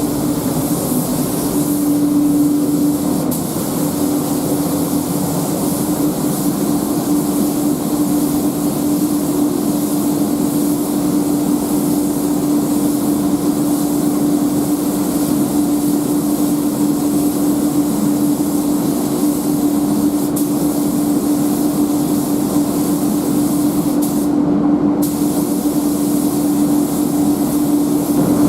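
Steady hiss of a compressed-air tool with a steady hum under it. The hiss breaks off for about a second near the end while the hum carries on.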